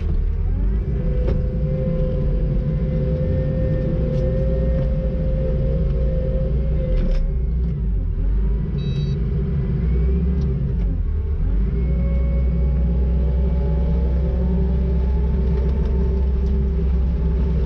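Kubota SVL90-2 compact track loader's diesel engine running as the machine drives, heard from inside the cab. The revs dip and recover twice around the middle, and a steady whine sits above the engine for much of the time.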